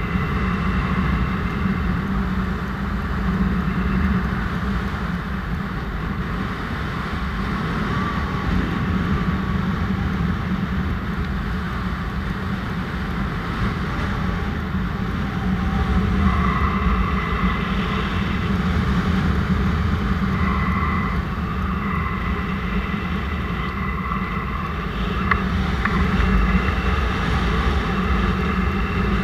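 Paramotor engine and propeller running steadily, with the rush of air over the microphone.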